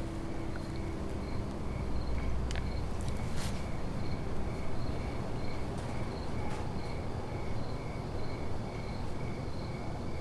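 A cricket chirping steadily, about two chirps a second, over a low hum of night-time room ambience, with a couple of faint clicks about a third of the way in.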